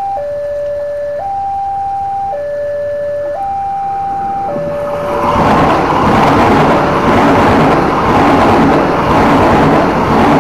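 Railway level-crossing alarm sounding a two-tone high-low signal, each tone held about a second. About five seconds in, a passing KAI passenger train's coaches rush by loudly and the alarm goes on faintly beneath them.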